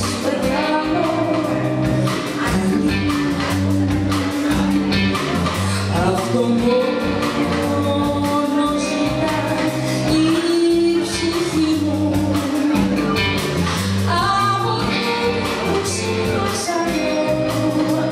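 Live band playing a Greek song with a woman singing lead, backed by electric guitar, bass guitar, keyboard and drum kit with a steady beat.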